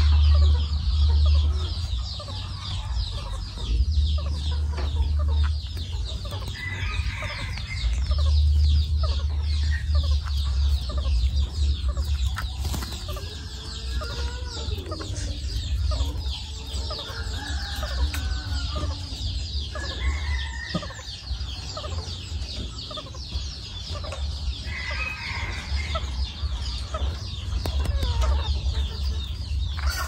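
A clutch of baby green parakeets calling together in a dense, rapid, high chatter, with several louder, lower squawks through the middle stretch.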